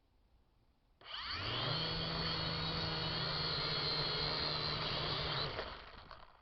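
Syma X7 quadcopter's motors and propellers spinning up suddenly about a second in, holding a steady whine for about four seconds, then winding down near the end. It is a take-off attempt that fails: the drone can't take off in the gusty wind.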